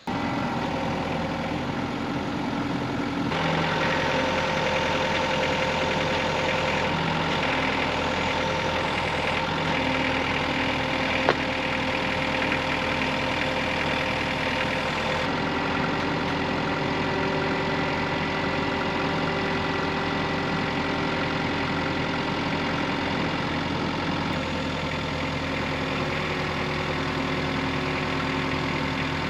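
An engine running steadily, its pitch stepping up about three seconds in and shifting again about fifteen seconds in, with a single sharp click about eleven seconds in.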